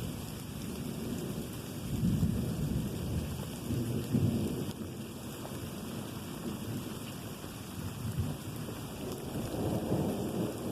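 Continuous rolling thunder, a low rumble that swells about two and four seconds in and again near the end, over steady rain falling.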